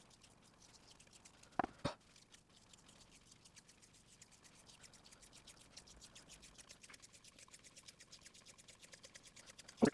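Grip tape being peeled off its roll and wound around a wooden bat handle: a faint, fine crackle of the adhesive letting go, growing slightly louder toward the end. Two quick knocks come just before two seconds in.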